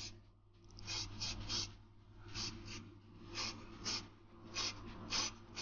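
Car spray-paint aerosol can hissing in about nine short puffs, several in quick pairs, laying light coats of metallic blue on a small diecast car body so the paint doesn't run.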